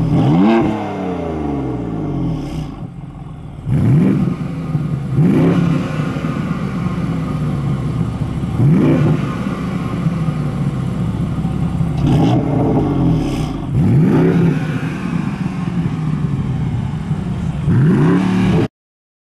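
BMW coupe engine at a standstill, revved again and again in short blips over a steady idle, each one a quick rise and fall in pitch; the sound cuts off suddenly near the end.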